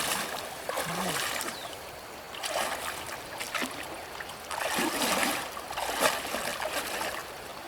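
Water splashing and sloshing in several irregular bursts.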